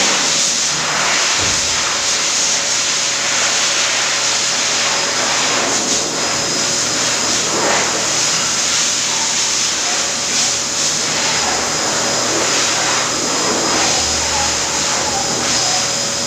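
Air blower running steadily with a loud rushing hiss and a faint high whine, the usual sound of a pet dryer blowing in a grooming salon.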